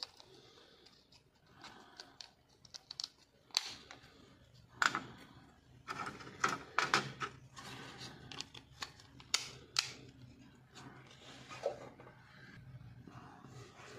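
Small clicks and taps of a Nokia 110's circuit board, LCD and plastic housing being handled and fitted together, busiest from about four to ten seconds in, over a faint low hum.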